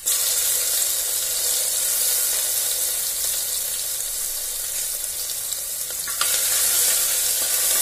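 Hot oil sizzling hard in an aluminium pressure cooker as wet crushed green chilli and ginger-garlic paste go into the tempering of mustard seeds and cumin, the sizzle starting suddenly as the paste hits the oil. A ladle stirs through it.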